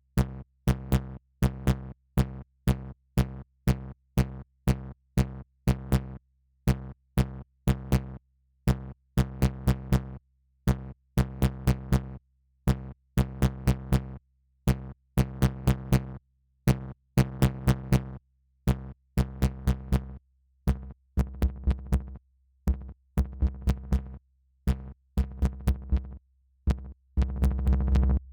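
Electronic music from a VCV Rack software modular synthesizer patch: a fast, uneven sequence of short pitched synth notes, each with a sharp click at its start, separated by silences. A sustained low bass tone comes in near the end.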